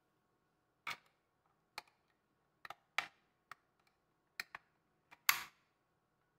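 Plastic battery cover of a bathroom scale being handled, set into its recess and pressed shut: a string of sharp, irregular clicks and taps, the loudest and longest a little before the end.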